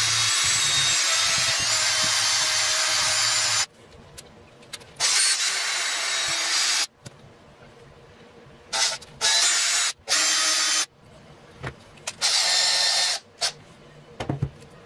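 Power drill running in several bursts of a few seconds with short stops between, spinning a small slotted screw held in its chuck against a sanding sponge to polish it.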